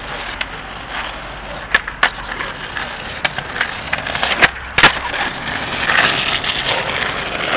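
Skateboard wheels rolling on asphalt with a steady rumble. Sharp wooden clacks of the board break through it: two lighter ones early, then two loud cracks about half a second apart near the middle, the pop and landing of a trick.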